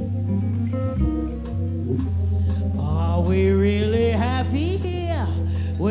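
Jazz trio of Hammond organ, guitar and drums playing held organ chords over a steady bass line; about three seconds in a woman's voice comes in singing, sliding up and down between notes.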